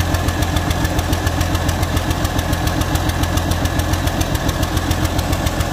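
Turbocharged Allis-Chalmers diesel engine running at a steady speed, its exhaust giving a loud, even train of rapid firing pulses.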